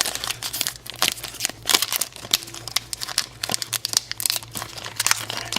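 Plastic wrapper of a Pokémon trading card booster pack being torn open and crumpled by hand: a dense, irregular run of sharp crinkles and crackles.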